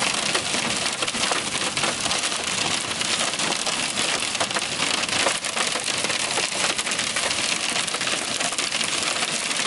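Hail hitting a car's roof and windshield, heard from inside the cabin: a dense, steady clatter of countless small hits.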